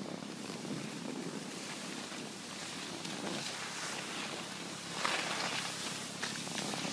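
Wind buffeting the microphone mixed with the hiss of skis sliding over packed snow, a little louder about five seconds in.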